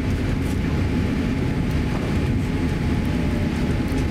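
Steady, loud cabin rumble of a Boeing 787-8 airliner during its landing rollout on the runway, decelerating with its spoilers raised.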